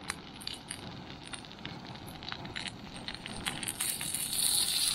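Cod puddings frying in a cast iron frying pan: a steady sizzle with many small crackling pops, the sizzle growing louder near the end as they are turned with a knife and fork.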